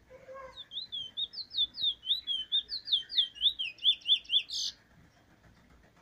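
Caged bullfinch singing one phrase of about four seconds: rapid repeated sweeping notes, about four or five a second, quickening toward the end and finishing on a sharp higher note.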